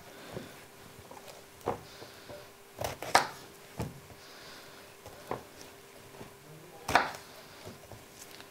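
Eggplants and a kitchen knife handled on a wooden cutting board: irregular knocks and taps a second or two apart.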